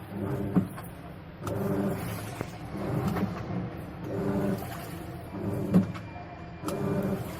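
Panasonic NA-F72L8 top-load washing machine agitating, its motor humming through repeated wash strokes about every second and a quarter, with a couple of sharp knocks. It is a noise problem from the gearbox, which is turning properly clockwise but not anticlockwise.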